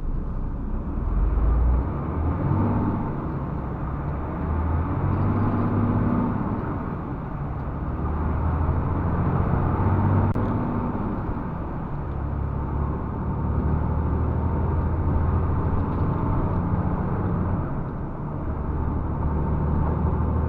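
Diesel engine of a MAN TGX 470 truck running under way, heard inside the cab with road noise; the engine note shifts up and down several times.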